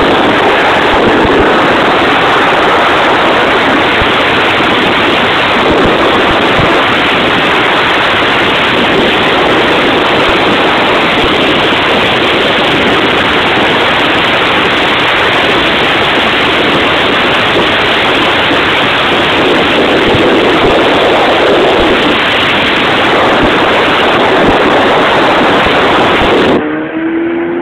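Mazda RX-8's rotary engine and tyres heard from inside the cabin while driven hard, a loud, steady rush of noise. About a second before the end it drops off sharply, leaving the engine's note climbing in pitch.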